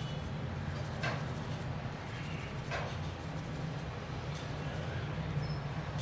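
Short scratchy rubbing strokes as the freshly soldered charging-jack area of a phone's circuit board is scrubbed clean with petrol, two of them clearest, about a second and nearly three seconds in, over a steady low hum.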